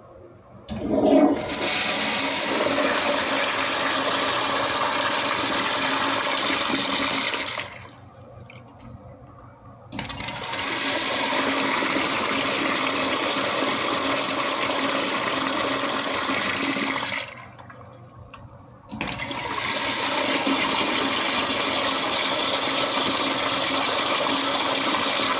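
Toilet flushing three times in a row: each flush is a rush of water lasting about seven seconds, with short pauses between as the tank refills.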